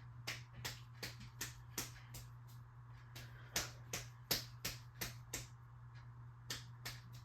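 42-inch Harbor Breeze Armory ceiling fan running just after start-up: a faint steady motor hum with quick clicks, about three a second, as it spins, the little noise it is making.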